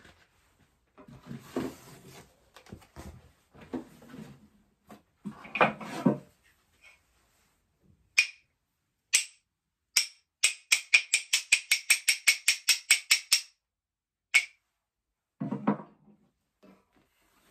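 Hyoshigi, a pair of wooden clappers, struck together: three separate clacks about a second apart, then a fast run of about seven strikes a second for some three seconds, and one last clack. This is the traditional signal that a kamishibai show is starting. Before it come rustling and knocking from handling the wooden stage frame.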